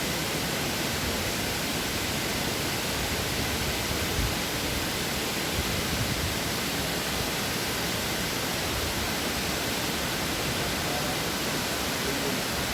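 Khandadhar Waterfall, a stream plunging about 244 m, rushing as a steady, unbroken wash of noise from low to high.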